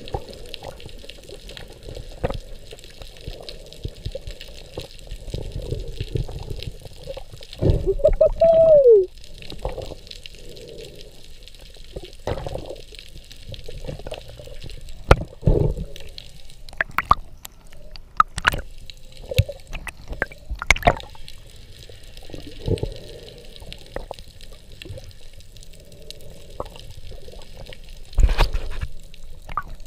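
Underwater sound heard through a diver's camera housing: a steady muffled water hiss with scattered sharp clicks and knocks as a speared fish is handled on the spear and line. About eight seconds in there is a loud muffled, voice-like call that falls in pitch at its end.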